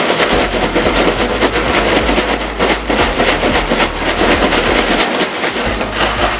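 Ice cubes rattling inside a large plastic zip-top bag as it is shaken by hand, a dense, continuous clatter of many small clicks. The shaking churns the salted ice around a sealed inner bag of cream to freeze it into ice cream.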